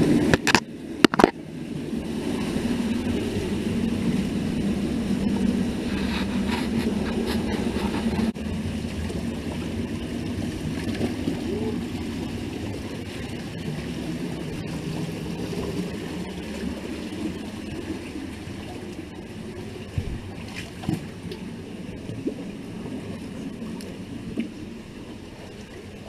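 Cave stream rushing and splashing over rock, the rush slowly fading. Two sharp knocks come about a second in.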